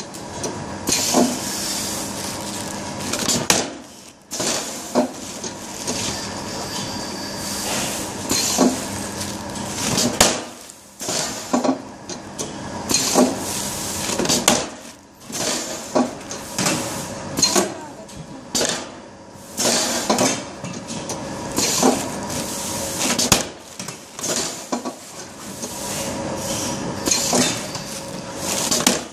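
Elastic-banding machine working: repeated metallic clacks and clatter every second or two as its mechanism snaps rubber bands around bagged plants, over a steady hiss and a low hum.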